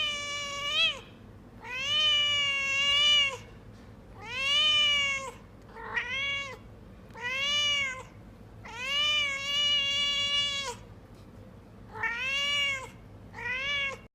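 A cat meowing repeatedly, about eight meows of a second or so each with short pauses between, several arching up and then down in pitch; the longest is near the middle.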